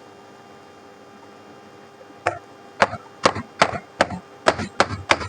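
Hammer striking a chisel to cut through the copper windings of a ceiling fan's coil: after about two quiet seconds, a run of about eight sharp strikes, two to three a second.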